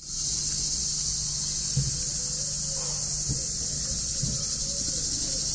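Chorus of cicadas: a dense, steady high-pitched buzz that holds level without pause.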